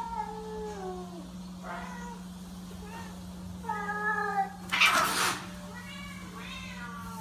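Stray cat yowling and meowing in a series of drawn-out calls, several sliding down in pitch. This is the hostile crying of one cat at another. About five seconds in there is a short harsh noisy burst.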